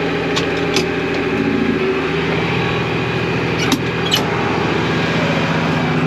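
International Harvester 3288 tractor's diesel engine running steadily, the baler's PTO shut off, with a few light clicks and knocks.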